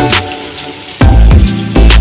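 Background music with a heavy bass beat and sharp percussion hits about once a second.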